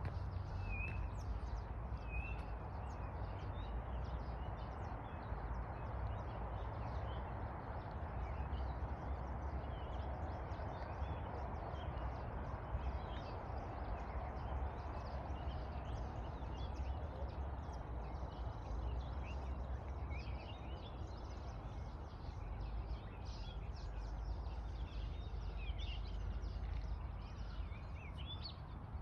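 Outdoor morning ambience: scattered short bird chirps over a steady low rumble and hiss.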